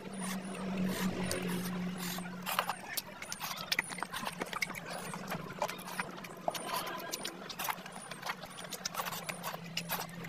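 Close-up mouth sounds of eating curry, chicken and rice by hand: a dense run of wet chewing clicks and lip smacks, with squelches from fingers mixing rice and curry. A low steady hum sits underneath, strongest for the first few seconds.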